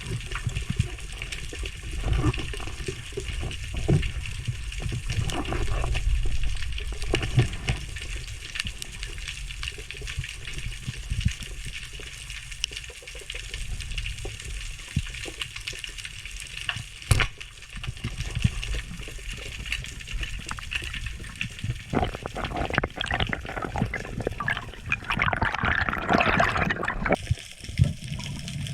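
Water sloshing and rushing with scattered crackles and a low rumble, louder and fuller for several seconds near the end.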